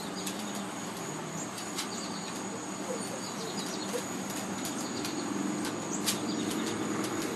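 Outdoor background of insects making a steady high drone, with a few short bird chirps and some faint taps.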